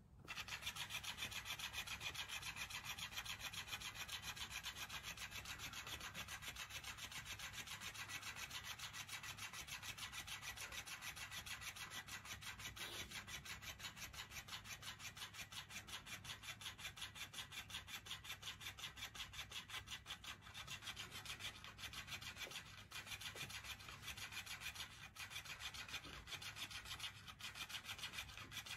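Electric flopping-fish cat toy running: the plush fish's tail flaps against the fleece blanket in a rapid, even rasping rhythm, a little more uneven in the last third.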